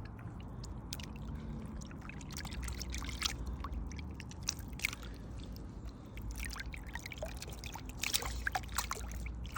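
Water trickling and small irregular splashes, as of live crucian carp and hands moving in shallow water.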